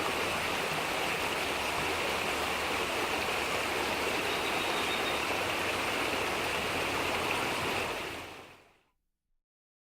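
Babbling brook: water running steadily over stones, a continuous rushing and gurgling that fades out about eight seconds in.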